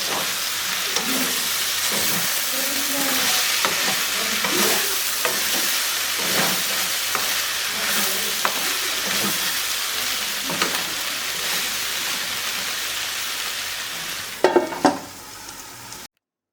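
Masala bhindi sizzling in hot oil in a pan while being stirred, with repeated scrapes of the spoon against the pan. Near the end come two loud knocks, then the sound cuts off suddenly.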